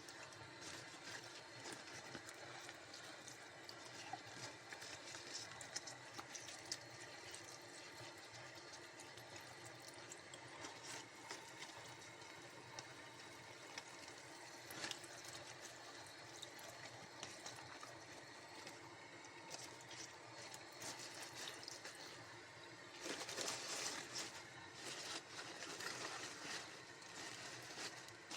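Faint trickling and splashing water, louder for a few seconds near the end.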